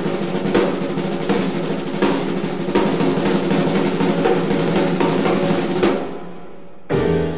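Hard bop jazz quintet recording (trumpet, alto saxophone, piano, double bass and drums) at full tilt, with busy snare drum work under the horns and piano. About six seconds in the band thins out and fades, then a sudden loud ensemble chord hits just before the end.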